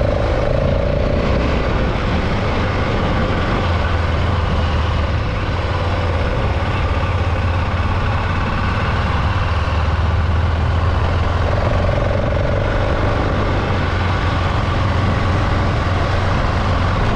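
BMW F 650 GS Dakar's single-cylinder engine running steadily as the motorcycle rides along a rough dirt track, heard from the rider's camera with a steady noisy rush over the engine note.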